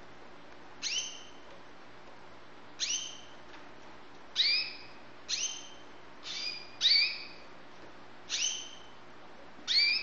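Young white canary giving short, sharp upswept call notes, about eight in all, spaced roughly a second apart, over a faint steady hum.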